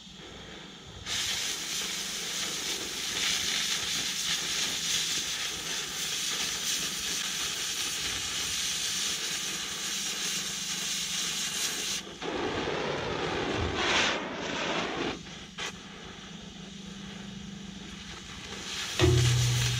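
Oxy-fuel cutting torch hissing steadily as it cuts through the wall of 8-inch steel pipe, the hiss growing sharply louder about a second in as the cut gets going. The sound changes about two-thirds of the way through, and a short, louder low hum comes near the end.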